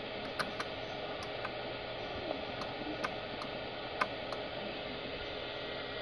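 Steady hiss of an FM radio receiver tuned to a satellite downlink with no signal yet, open squelch noise only. A few light clicks are scattered through it.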